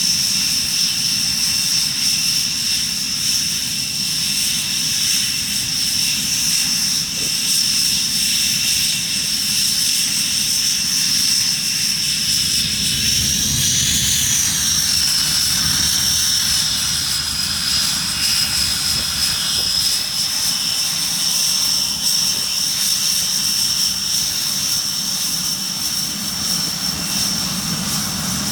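Jet engines of a Panavia Tornado (RB199 turbofans) running steadily, with a loud high-pitched whine over a low rumble. The whine rises briefly in pitch about halfway through, then settles back.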